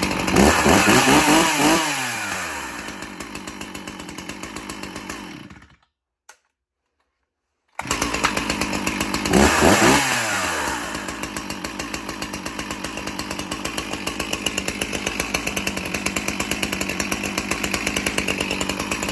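Warm 60cc Stihl MS361 two-stroke chainsaw, just pull-started, revving and falling back to idle. It cuts out about six seconds in, starts again about two seconds later, revs briefly and settles into a steady idle.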